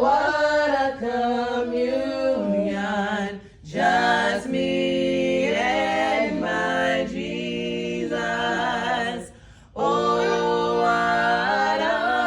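A cappella vocal group singing in close harmony, holding long chords without instruments; the singing breaks off briefly twice, about three and a half and nine and a half seconds in.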